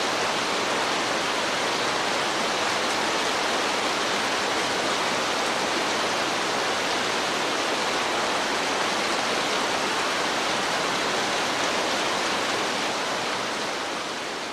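Steady, dense hiss of heavy rain, even throughout, beginning to fade out near the end.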